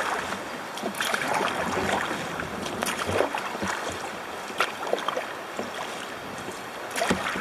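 Kayak paddle strokes splashing in river water, an irregular splash every second or two, over a steady rush of background noise.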